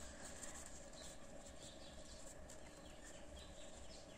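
Quiet room tone with a steady faint hum, and faint soft rustles of cotton fabric being handled and lined up.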